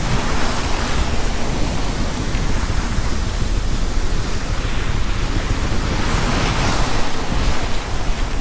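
Wind buffeting the microphone over the steady rush of sea waves, swelling a little about six to seven seconds in.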